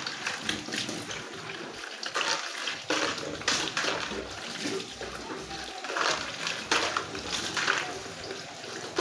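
Tap water running into a kitchen sink while dishes are washed by hand, with a few sharp clatters of crockery and utensils.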